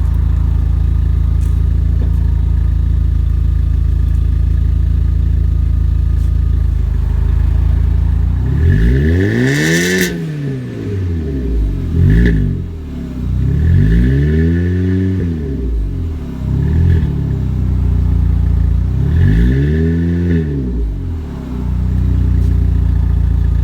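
2008 VW Golf City's 2.0-litre four-cylinder engine idling steadily through a 2.5-inch exhaust with a Flowmaster Super 40 muffler, then revved up and let fall back three times before it settles to idle again.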